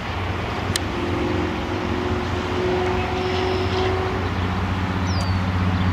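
A steady low engine drone with a faint humming tone through the middle, a single click about a second in, and a short high chirp near the end.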